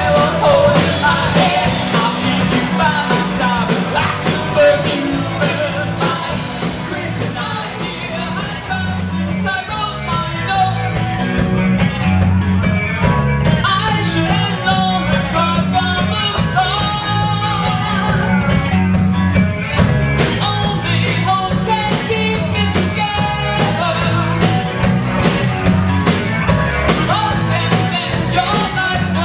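Live rock band playing with lead vocals over electric guitar, bass, keyboard and drums. About ten seconds in the band thins to a sparser passage, then comes back in full about twenty seconds in.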